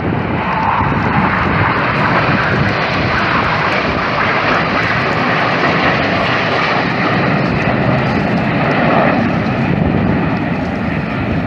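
Formation of nine BAE Hawk T1 jets with Rolls-Royce Turbomeca Adour turbofans flying a display pass: a loud, steady jet roar.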